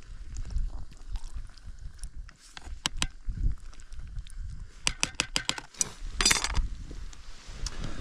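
Metal utensil clinking and tapping against a metal cooking pot: a couple of clinks, then a quick run of about six taps, then a brief rattle, over a low rumble.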